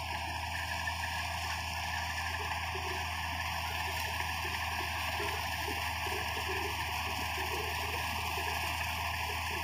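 Combine harvester running steadily while cutting wheat: a constant engine and threshing drone with irregular clattering through it, which the owner puts down to a loose feeder house chain.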